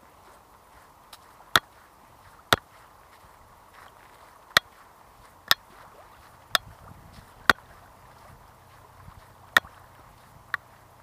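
Eight sharp knocks over a faint steady hiss, mostly in pairs about a second apart with longer gaps between the pairs.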